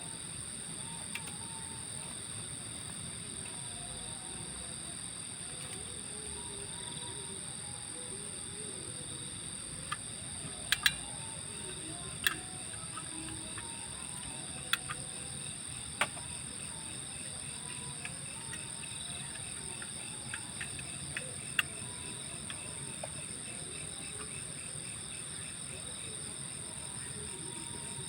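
Steady high-pitched chorus of chirring insects, such as crickets, with a few sharp clicks scattered through it.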